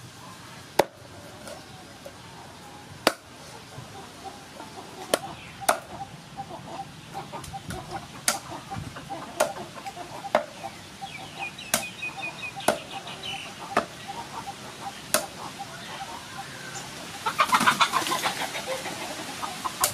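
Cleaver chopping raw duck on a round wooden chopping block: sharp, single chops at irregular intervals of one to two seconds. Birds call in the background, with a louder burst of calls near the end.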